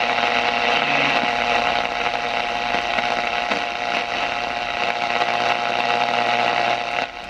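Arvin Model 655 SWT radio hissing with static through its speaker as the tuning knob is turned between stations, over a steady low hum. The static drops off suddenly near the end.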